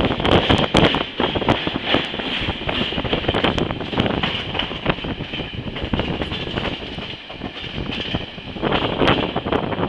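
Passenger train running along the track, wheels clacking irregularly over rail joints over a steady rumble and rush of running noise; it eases off slightly about two-thirds of the way through, then grows louder again.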